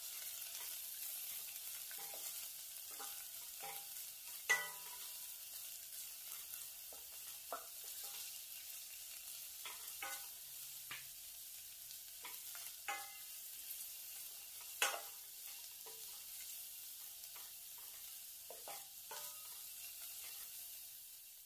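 Diced carrot, green beans, shiitake mushroom and dried shrimp sizzling in a stainless steel pot as a wooden spatula stirs them. Irregular scrapes and taps of the spatula on the pot come through the steady sizzle, with two sharper knocks about four and a half and fifteen seconds in.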